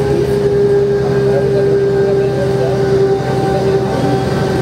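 Mercedes O405N city bus heard from inside the cabin while cruising: the OM447h diesel running steadily, with a steady high whine from the ZF 5HP-500 automatic gearbox over the low engine hum.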